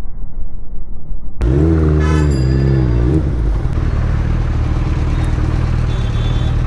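Suzuki Hayabusa's inline-four engine heard from the rider's seat in traffic: a muffled low rumble, then about a second and a half in a sudden louder, clearer engine note that wavers in pitch for about two seconds before settling into steady running.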